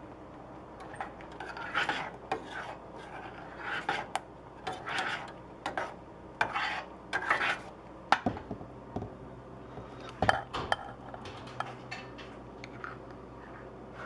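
Metal spoon stirring thick canned chili with beans in a stainless steel pot: irregular wet scraping strokes against the pan, with a couple of sharp clinks of spoon on metal about two thirds of the way through.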